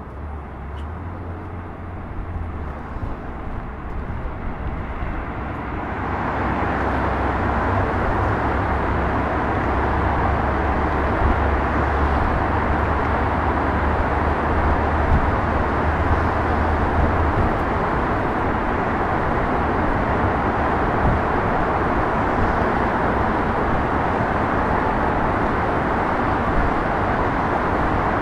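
Open-top tour bus on the move: a low engine hum under a rushing of road and wind noise, which swells about six seconds in and then holds steady.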